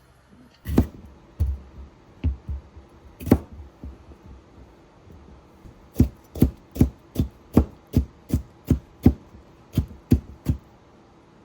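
Kitchen knife chopping on a cutting board: a few scattered chops at first, then a steady run of about two to three chops a second from about six seconds in.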